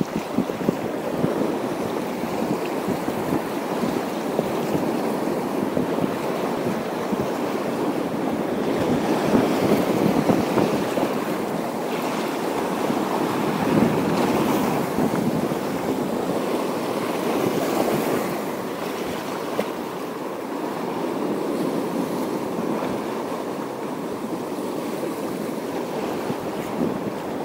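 Sea waves washing on a rocky shore, with wind on the microphone: a steady rushing that swells and eases gently.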